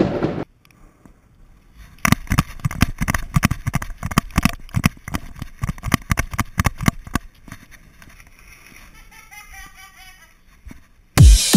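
Footsteps knocking on wooden stairs and a wooden deck, a quick run of irregular thuds, then a fainter scraping and rolling as a sliding glass door is moved on its track. Loud electronic dance music cuts in near the end.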